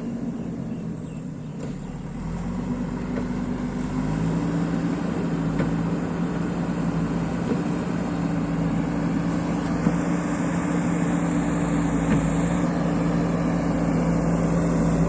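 Diesel engine of a JCB 3DX backhoe loader running, stepping up in pitch about two seconds in and again about four seconds in as it is throttled up, then holding a steady higher speed.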